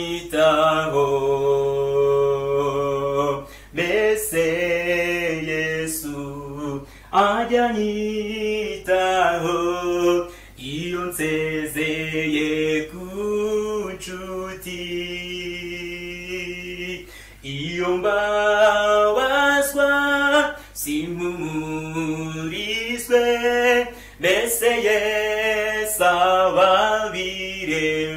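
A man singing a hymn solo and unaccompanied in Kinyarwanda, in long held phrases with short breaks between them.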